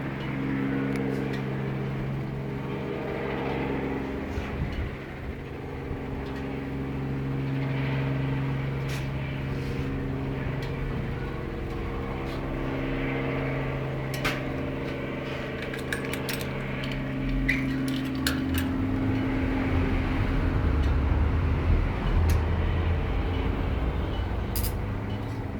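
Yamaha Factor single-cylinder motorcycle engine running through an aftermarket Roncar aluminium RS exhaust, a steady even drone that turns rougher and a little louder about 18 seconds in.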